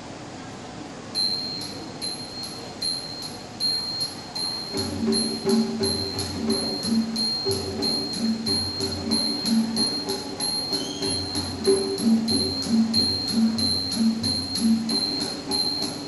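A Thai piphat mai khaeng ensemble beginning a piece. Small ching cymbals start about a second in with a steady ringing beat about twice a second. About five seconds in, lower pitched instrument notes join in a repeating pattern.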